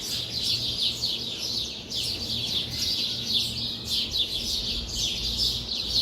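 Many small birds chirping at once: a dense, continuous stream of short, high, falling chirps that overlap one another.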